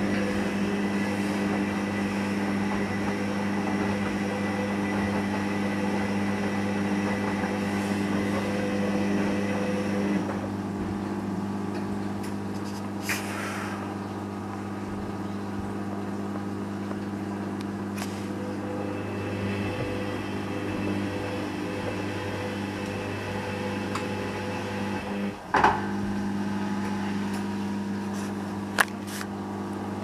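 Hoover Dynamic front-loading washing machine with its motor humming steadily as it turns the drum of wet laundry, trying to re-balance the load before the spin. The hum eases a little about a third of the way in. A sharp click, the loudest sound, comes about three-quarters of the way through, and a smaller click follows.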